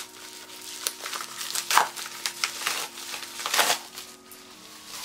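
Yellow padded mailer envelope being torn and pulled open by hand: irregular crinkling and ripping, with the loudest rips about two seconds in and again about three and a half seconds in.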